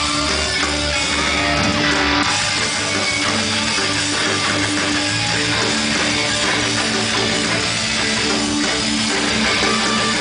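Rock band playing live, electric guitars sounding steadily and loudly, heard from among the audience.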